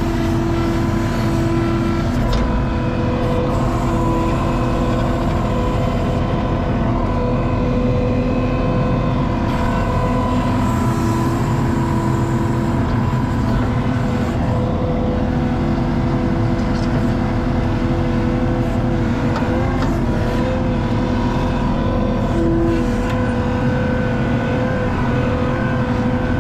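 ASV compact track loader running steadily under load while grading dirt: a diesel rumble with a steady hydraulic whine, and a few faint knocks of the machine working.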